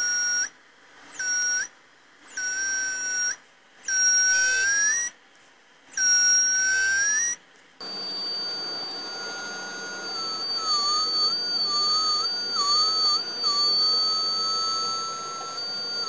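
Small round buzzer of a home-made BC557-transistor and LDR fire-alarm circuit sounding a high-pitched tone: about five separate beeps, from half a second to a second and a half long, some rising in pitch at their ends, then from about eight seconds in a continuous tone that wavers in pitch. The alarm is set off by a flame held near the light sensor.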